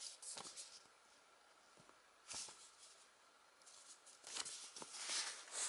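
Stapled sheets of paper rustling and crinkling as they are handled and turned over, in a few short bursts with a light click about two-thirds of the way through.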